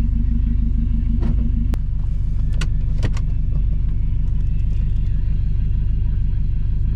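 2014 Subaru WRX STI's turbocharged 2.5-litre flat-four engine running steadily at low revs, with a few short sharp clicks in the first half.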